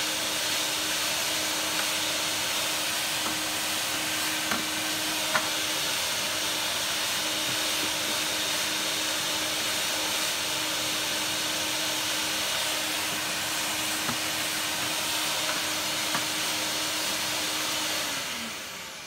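VAX 2000 vacuum cleaner running steadily, with a few light knocks along the way. Near the end it is switched off and its motor whine falls away as it winds down.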